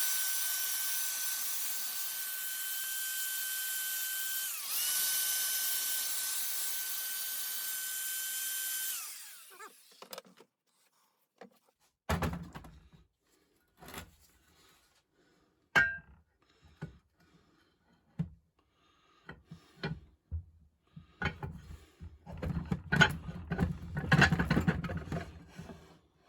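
Electric drill running at speed with a steady high whine, spinning down briefly about four and a half seconds in, then again about nine seconds in, as a vise part is cleaned. Afterwards scattered knocks, then rubbing and clatter of metal parts being handled near the end.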